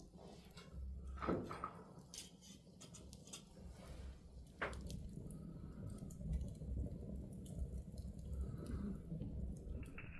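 Wood fire crackling in a fireplace: irregular sharp pops and snaps, two louder ones about a second and four and a half seconds in, over a low steady rumble.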